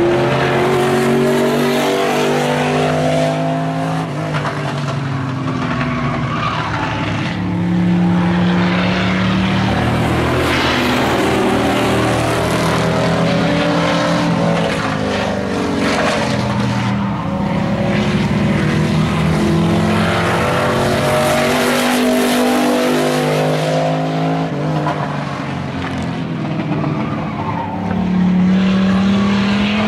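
Engines of several stock pickup race trucks running hard around an oval, their overlapping engine notes rising and falling as the trucks lap past.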